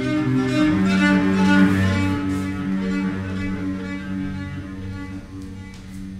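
Solo cello bowing slow, sustained low notes, improvised. A long low note is held from about a second in, and the playing grows gradually quieter toward the end.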